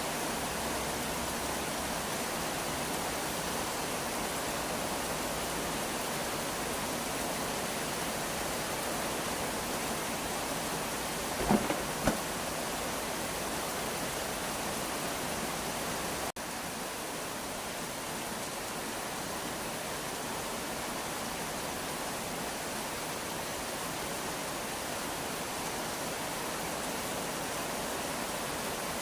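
Steady rain falling, an even hiss with no let-up. Two sharp taps a little before the middle stand out as the loudest moment, and the sound dips sharply for an instant a little past halfway.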